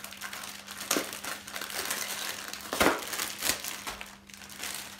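Clear plastic packaging bag crinkling as it is handled, with a sharper, louder crackle about three seconds in.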